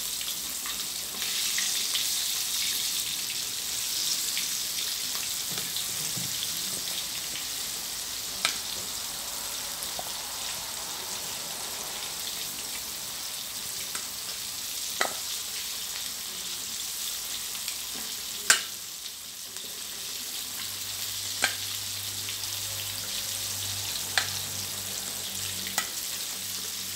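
Flour-coated chicken wings deep-frying in a wok of hot oil, a steady sizzle, with several sharp clicks of metal tongs against the stainless steel bowl of dredged wings, the loudest about two-thirds of the way through.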